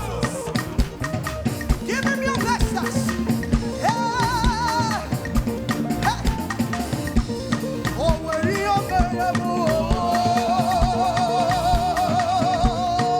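Live upbeat church praise music from a band, with drums and shaker-like percussion keeping a dense, steady rhythm. Long wavering held notes sound over it, one briefly in the middle and a longer one through the last few seconds.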